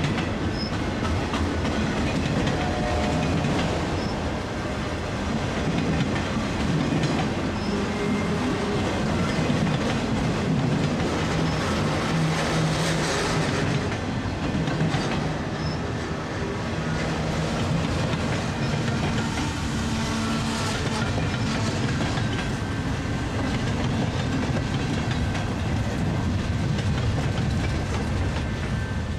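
Freight cars rolling past, with steel wheels running on the rails in a steady rumble and a few faint short squeals.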